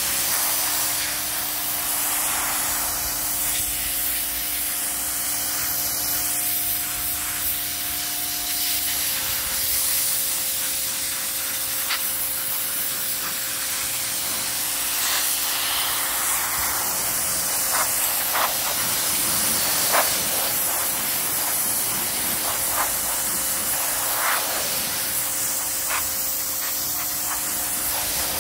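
Parkside PHD 170 D2 electric pressure washer spraying its high-pressure jet onto a stone wall base: a steady loud hiss of water with the pump motor's steady hum under it. A few sharp ticks come in the middle stretch.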